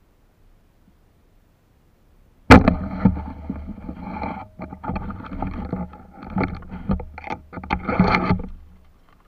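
Water sloshing and splashing with irregular knocks and rattles from handling. It starts suddenly with a sharp click about two and a half seconds in, runs on unevenly, and dies away shortly before the end.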